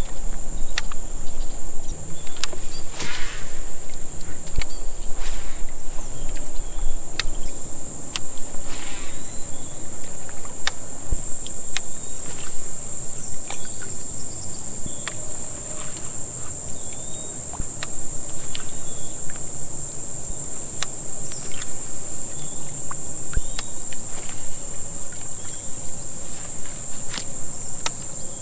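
A steady, high-pitched chorus of summer insects buzzing, growing louder about eleven seconds in, with scattered sharp clicks over it.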